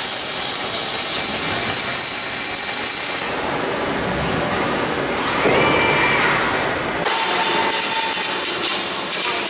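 Industrial robots arc-welding a car bumper beam: a steady hiss of the welding arcs amid machine noise, the sound shifting abruptly a few times, with a brief whine about halfway through and a steady tone near the end.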